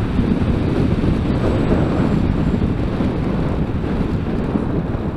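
Steady rush of wind over the onboard camera's microphone on a radio-controlled model plane flying low. The rush eases slightly toward the end.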